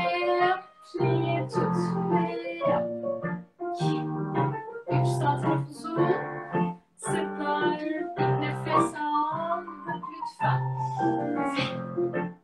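Piano-led music with a singing voice, played in phrases with brief breaks between them.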